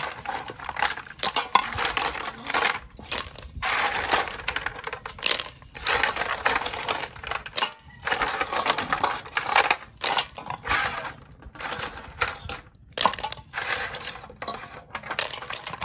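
Apple snail shells clattering and clinking against one another and the aluminium pot as they are dropped in by the handful, in repeated bursts with short pauses between.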